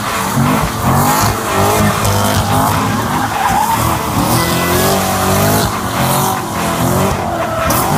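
Hennessey H700 supercharged 6.2-litre V8 of a Corvette C8 Stingray revving up and down repeatedly as the car spins donuts, with the rear tyres squealing and skidding.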